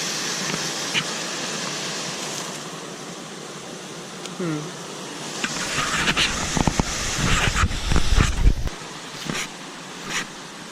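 Steady rush of flowing water from a hill-fed drain. Heavy rumbling and a few knocks on the microphone come between about six and eight and a half seconds in.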